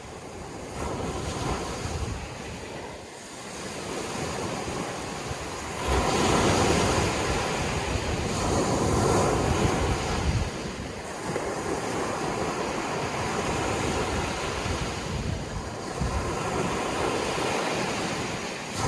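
Sea waves surging in and washing back, rising and falling in several swells, the loudest about six seconds in.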